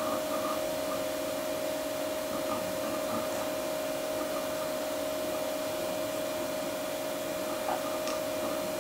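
A Macintosh Plus booting from its hard drive: the drive's steady spinning whine over hiss, with faint clusters of ticking from the drive heads seeking near the start, about three seconds in, and near the end.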